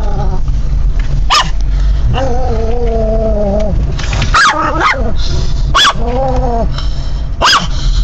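Small Pomeranian-type dog barking at the windshield wipers: four sharp yips, with long drawn-out whines in between, over the steady low rumble of the car.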